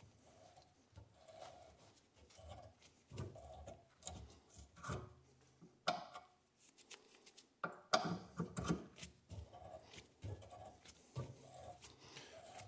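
An 8.5 mm hand reamer turned in a tap wrench, cutting its way through a car door hinge's bolt hole. The faint scraping comes in repeated strokes about every two-thirds of a second, with a short pause and a few louder knocks about two-thirds of the way through.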